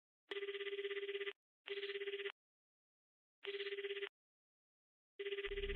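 Telephone ringing: a trilling electronic ring in four separate bursts with silence between them. The first burst lasts about a second and the others are shorter.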